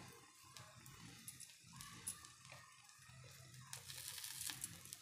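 Very quiet cooking sounds: faint scattered ticks over a low hum, then a brief soft rustle about four seconds in as a hand sprinkles chopped vegetables onto a pancake cooking on a tawa.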